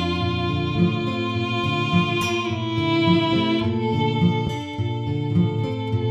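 Instrumental background music: held string tones over a steady low beat that falls about once a second.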